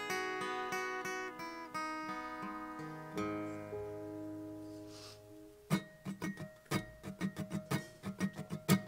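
Taylor acoustic guitar fingerpicked in a slow solo intro, single notes ringing over one another and fading out about five and a half seconds in. A run of quick, uneven sharp ticks, several a second, follows.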